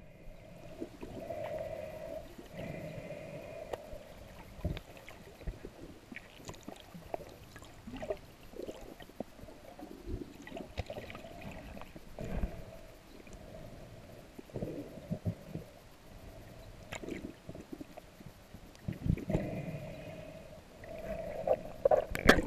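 Underwater sound picked up through a camera housing: a muffled, wavering hum that comes and goes three times, with scattered faint knocks and clicks.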